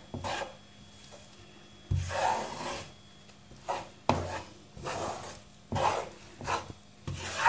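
Spatula scraping and pushing thick, crumbly besan and ghee around a nonstick pan in a series of short strokes, roughly one a second. The chickpea flour is being kept moving while it roasts so it won't catch on the bottom.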